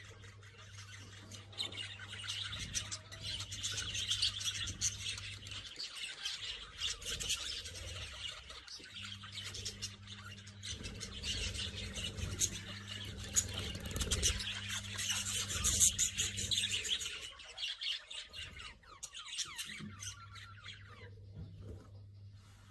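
Green parrots chattering, with many rapid overlapping chirps and squawks that thin out near the end. A steady low electrical hum runs underneath and drops out twice.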